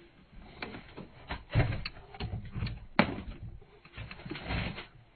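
Boxed vinyl figures being rummaged through and handled in a delivery box: cardboard rustling with a series of light knocks and clicks, the sharpest about three seconds in.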